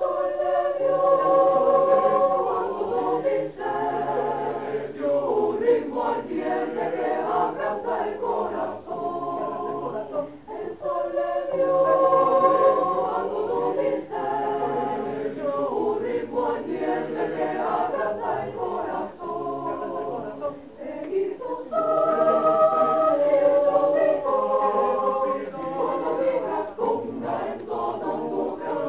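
Mixed high school choir singing in several-part harmony, apparently a cappella, in phrases of a few seconds with short breaks between them.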